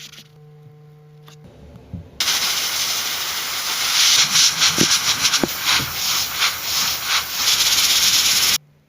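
A loud pressurised hiss, like a jet of air or spray, switching on abruptly about two seconds in, wavering in strength, and cutting off suddenly near the end.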